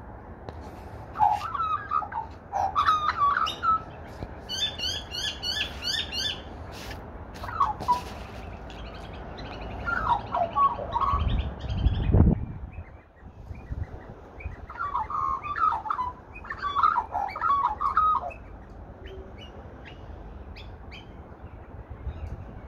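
Australian magpie warbling in several bursts of varied, bubbling notes. A run of rapid high chirps comes a few seconds in, and a low rumble is heard near the middle.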